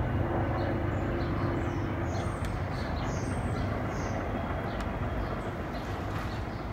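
Distant rumble of a Boeing 787-9's twin GEnx-1B engines as the jet climbs away after takeoff, slowly fading, with small birds chirping.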